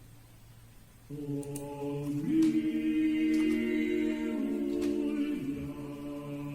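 Chant-like vocal music with long held notes, played by the FM clock radio. A low sustained drone gets louder about a second in. A higher held chord joins about two seconds in and stops about five seconds in.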